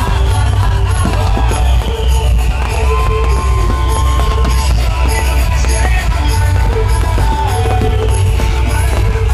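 Loud rock music with heavy bass and a steady drum beat.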